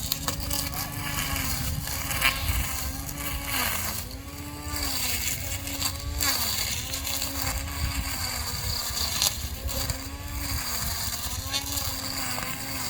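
Battery-powered grass-cutting machine's motor running steadily, its pitch dipping briefly every couple of seconds as it takes load.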